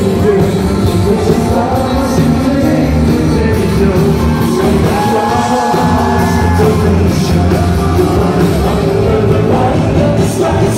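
Live pop band and a group of male singers performing, recorded from within the audience, loud and continuous; a sung note is held for about a second and a half around the middle.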